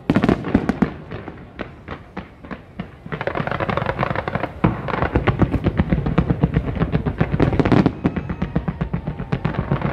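Fireworks going off: separate bangs, then from about three seconds in a dense rapid crackle of many bursts that eases off near the end.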